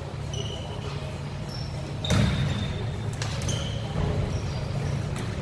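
Basketball game on a hardwood gym floor: sneakers squeaking in short chirps and a ball bouncing, with sharp thuds about two and three seconds in, the first the loudest, in a large reverberant gym.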